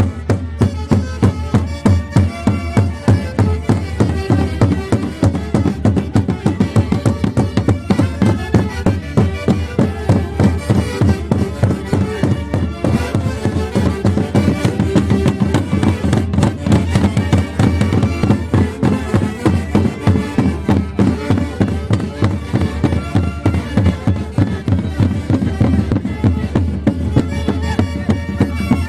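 Andean orquesta típica playing a Santiago, a Huancayo festival dance: reed wind instruments and violins playing the melody together over a steady beat of about two pulses a second.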